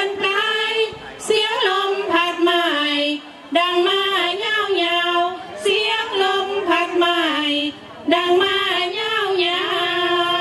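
Women's voices singing a Thai sarabhanya (Buddhist devotional verse) melody unaccompanied, long held notes that bend up and down, broken by short pauses for breath about three seconds and eight seconds in.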